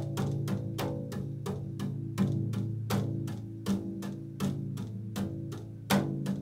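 Upright double bass played pizzicato: an improvised run of plucked low notes, about four or five a second, each ringing on.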